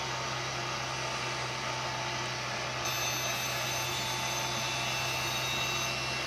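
Electric drive motor of a SkyRC 1/4-scale RC motorcycle spinning on the bench with a steady hum. A thin high whine joins in about three seconds in as the current draw climbs. The motor keeps gaining speed, which the owner takes as a sign that its control board is not controlling it.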